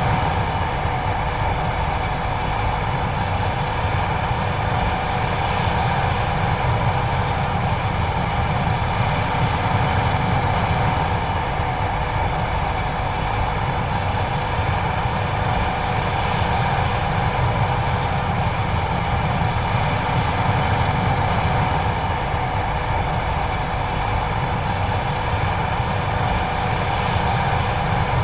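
John Deere 9570STS combine running steadily while harvesting corn: a constant low drone with a few steady tones held over it, unchanging throughout.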